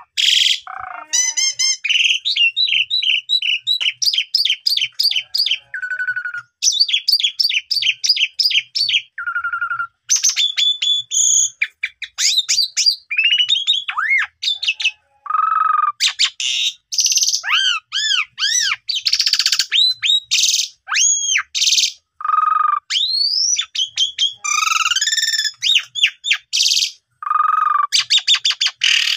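Asian pied starling (jalak suren) singing a long, varied song in full voice: clear whistles, fast trilled runs, rising and falling glides and harsh chattering notes, one phrase after another with hardly a pause.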